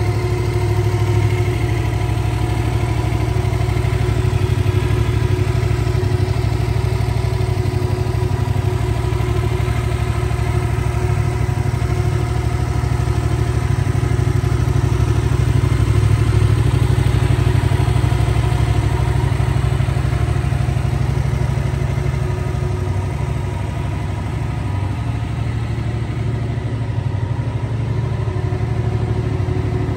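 Yamaha MT-07 Tracer's 689 cc parallel-twin engine idling steadily through its stock exhaust.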